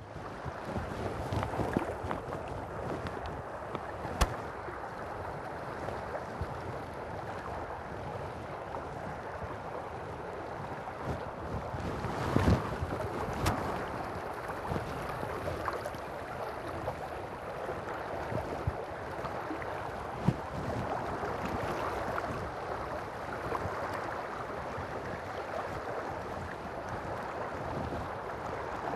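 Steady rush of river water flowing past, with a few short, sharp clicks.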